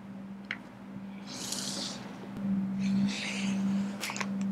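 Unboxing handling of an iPad Pro: the device is slid out of its box and its protective plastic film is peeled off, giving two short crackling rustles with a few light taps. A steady low hum runs underneath.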